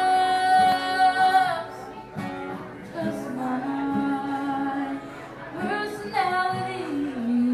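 A woman singing a country ballad live over acoustic guitar: she holds one long note that ends about a second and a half in, the guitar picks on quietly, and she comes back in with more sung phrases near the end.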